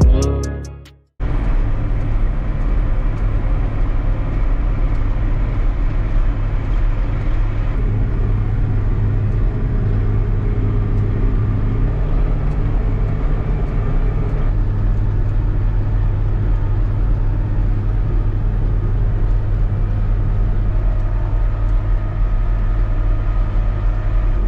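Intro music cuts out about a second in, and then a John Deere 8870 tractor's diesel engine runs at a steady, even drone.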